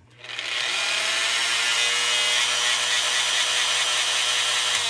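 Makita GD0800C electric die grinder with a carbide burr fitted, run free with no load on speed setting 3: it spins up within the first second to a loud, steady high-pitched whine, then is switched off near the end and starts to wind down. Its owner can't account for the noise it makes.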